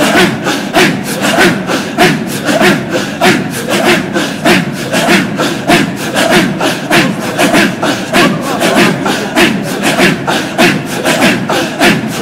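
A circle of men chanting a Kadiri dhikr in unison, with forceful, breathy rhythmic exhalations a little under two a second and voices singing over the pulse.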